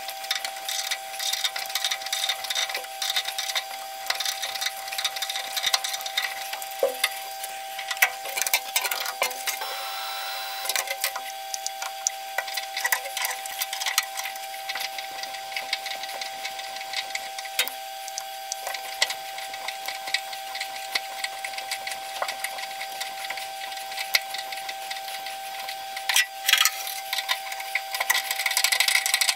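Small metal lathe running with a steady whine while a threading die cuts a thread on a medium-carbon steel rod, giving irregular scraping and clicking. There is a burst of louder clicks near the end.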